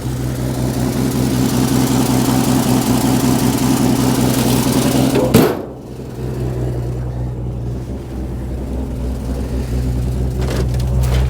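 The AMC straight-six of a 1980 Jeep Cherokee Chief running steadily on fast idle just after a cold start. About halfway through there is one sharp knock, after which the running sounds quieter and less hissy.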